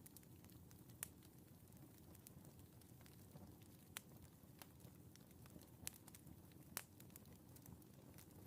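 Faint wood fire burning in a fireplace: a steady low rumble with scattered sharp crackles, four louder pops standing out.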